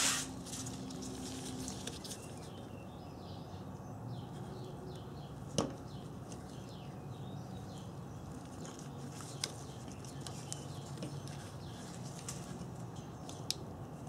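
Gloved hands handling wires and heat-shrink butt connectors: soft, quiet rustling with a few sharp small clicks spaced several seconds apart.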